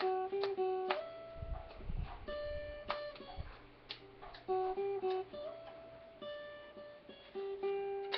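Steel-string acoustic guitar played by hand, picked chord notes and strums ringing out one after another, with a few low thuds around two seconds in.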